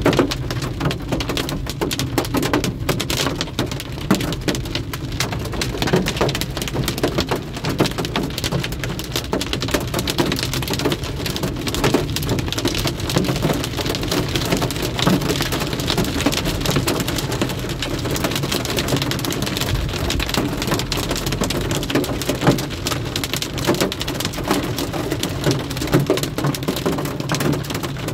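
Heavy rain pelting the roof and windshield of a car, heard from inside the cabin: a dense, steady patter of countless drops.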